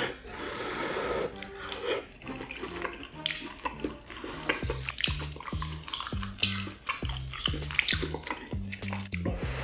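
Close-up wet chewing and mouth smacking of stir-fried baby octopus and large intestine, many short sharp clicks, with a wet slurping hiss in the first two seconds. Background music with a low bass line comes in about halfway.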